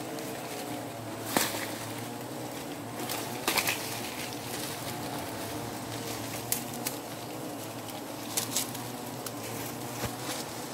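Swarm of wild honeybees around an exposed comb, a steady buzzing hum with a slightly wavering pitch. A few sharp clicks break in now and then.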